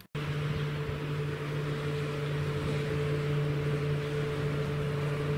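Motorboat engine droning steadily across the water, with a constant hiss behind it.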